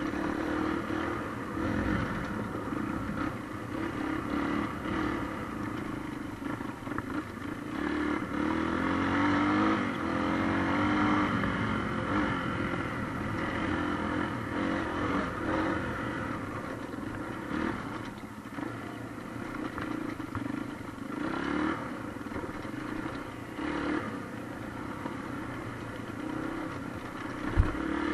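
Trail motorbike engine running as it rides a rough dirt track, its pitch rising and falling with the throttle, over a steady clatter and rattle from the bumpy ground. There is a sharp knock near the end.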